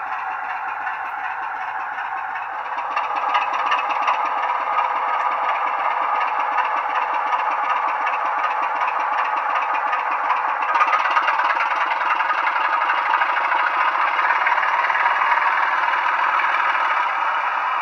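Model diesel locomotive's sound decoder playing a Legomanbiffo diesel engine sound through its small onboard speaker, running steadily. It gets louder about three seconds in and steps up again near eleven seconds in.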